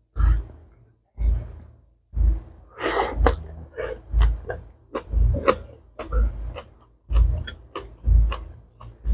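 A person chewing and eating close to the microphone: a low thud about once a second with wet smacking and crunching clicks between them.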